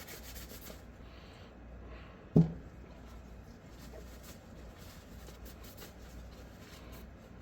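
Light scraping at the face of an SKS rifle bolt, with a single sharp knock about two and a half seconds in.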